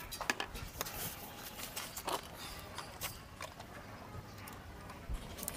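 Scattered light clicks and knocks of a plastic engine-oil bottle being handled and moved.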